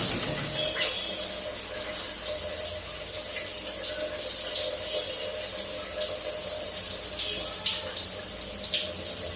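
Water running steadily from a tap and splashing, with an African grey parrot bathing under the stream.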